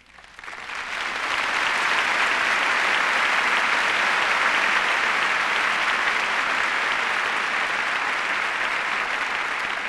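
Large audience applauding: the clapping swells over the first second or two, holds steady, then slowly begins to fade near the end.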